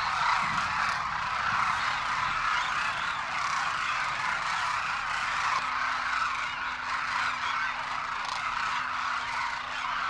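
A large flock of demoiselle cranes calling all at once: a dense, unbroken chorus of many overlapping calls.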